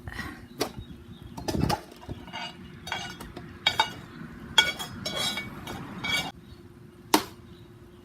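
Metal clinks and scrapes from a cast iron Dutch oven being lifted off hot coals: a run of irregular knocks, some ringing briefly, with one sharp clink near the end.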